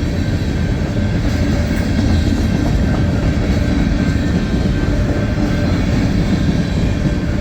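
Freight cars of a long mixed freight train rolling past close by: steady, loud rumble of steel wheels on the rails.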